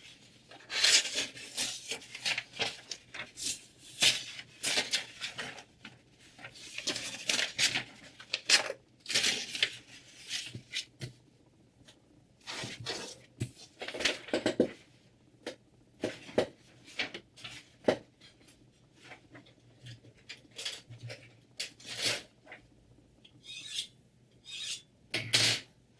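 Irregular handling noises: light metal clinks, short scrapes and rustles, with quiet gaps between them and no motor running.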